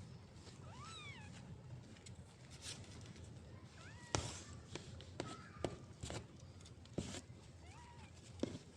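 Newborn kittens mewing: a few short, high-pitched mews, one about a second in, another about four seconds in and one near the end. Several sharp knocks or taps come in between, the loudest about four seconds in.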